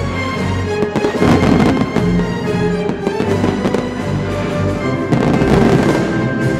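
Fireworks going off in several bangs and crackles, with music playing over them.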